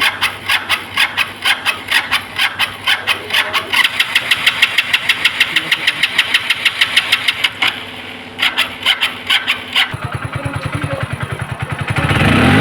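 Hero HF Deluxe's single-cylinder four-stroke engine cranking over with a steady rhythm. It stops briefly, cranks again and catches about ten seconds in, then revs up near the end. This is a test start after a new fuel pump was fitted to cure poor pickup.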